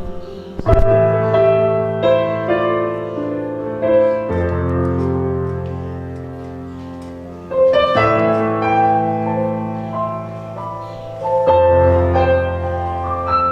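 Piano or keyboard playing slow, sustained chords over held bass notes, a new chord struck every three to four seconds.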